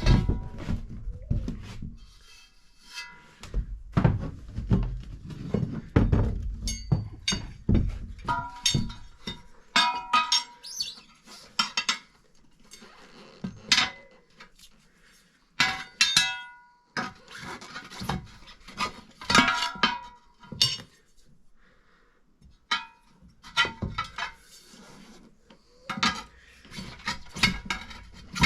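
Metal tools clanking and knocking on a steel tractor wheel rim during front tire removal: sharp, ringing metallic clinks, with dull thumps clustered in the first several seconds.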